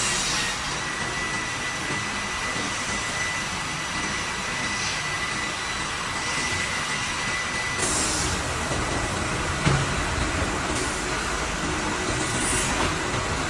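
Plywood veneer-line machinery running steadily, with a thin constant whine and short hissing bursts now and then.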